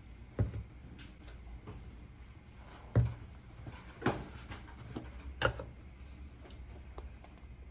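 A few short, sharp clicks and knocks of kitchen utensils and spice containers being handled and set down, spread a second or so apart over a low steady hum.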